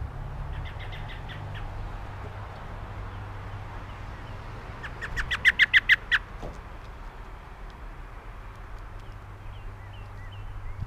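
A songbird calling in two runs of short, quickly repeated notes, about eight a second: a faint run about a second in and a loud run about five seconds in, with a few soft chirps near the end. A steady low rumble lies underneath.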